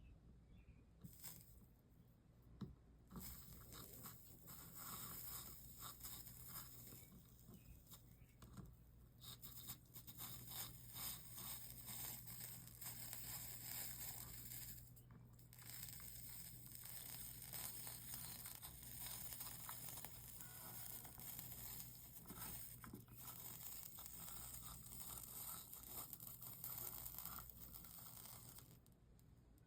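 Soldering iron melting solder along the copper-foiled seams of a stained-glass panel: faint, continuous crackling and sizzling of flux under the iron tip. It breaks off briefly about halfway and stops shortly before the end.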